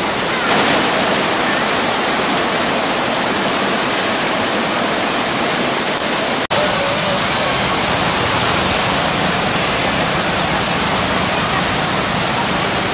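Rocky river rapids: water rushing steadily over and around boulders, a loud, even wash of sound that breaks off for an instant about six and a half seconds in.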